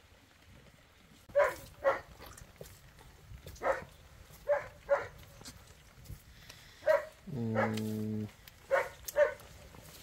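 A dog barking in short, sharp barks, mostly in pairs about half a second apart. About seven seconds in there is one long, low, steady call of about a second.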